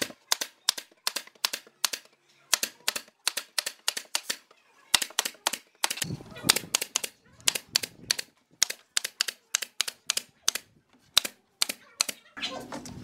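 Nail gun firing nails into pine pallet boards: rapid sharp shots in irregular runs of about two to three a second, with brief pauses between runs.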